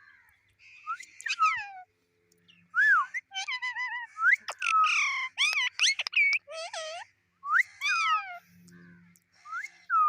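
Pet parrot calling: a quick run of whistles and chirps, each gliding up or down in pitch, with short breaks between them.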